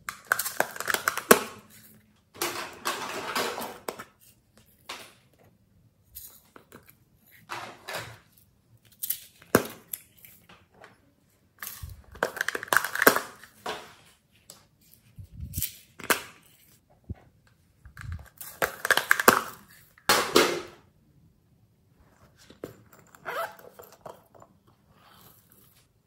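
Small plastic containers being handled and opened, with clicks of lids and the rattle and rustle of glitter and sequins being shaken out, in about half a dozen bursts of a second or two with quiet between.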